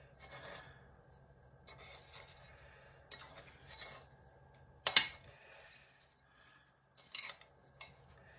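Metal spoon scraping and scooping through dry breadcrumbs in a small ceramic bowl to coat a battered nugget, in short spells of scratchy rustling. A sharp clink of the spoon against the bowl about five seconds in is the loudest sound, with a few lighter taps a couple of seconds later.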